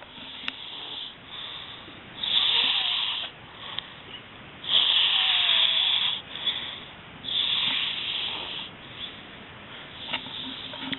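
Person snoring in deep sleep: three long, strong snores about two and a half seconds apart, with softer breathing snores between them.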